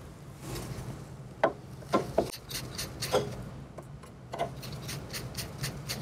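Phillips screwdriver backing screws out of a rack server's metal air-baffle cage: faint rubbing and scraping with a few sharp clicks, the loudest about a second and a half and two seconds in.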